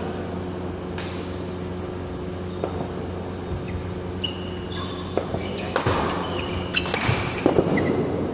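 Badminton rally: rackets strike the shuttlecock with sharp cracks at irregular intervals, and sneakers give short high squeaks on the court floor in the middle of the rally. A steady hum runs underneath.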